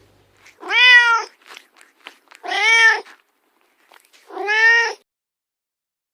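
A cat meowing three times, each meow about half a second long and arching up then down in pitch.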